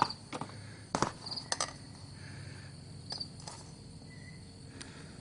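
Cardboard oil-filter box being opened and handled, with a few sharp crackles and taps. A cricket chirps briefly several times.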